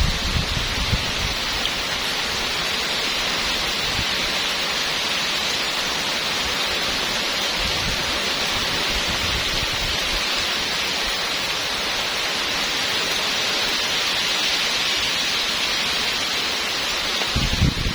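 Heavy rain pouring steadily in a downpour, with strong wind gusting on the microphone in the first second and again near the end.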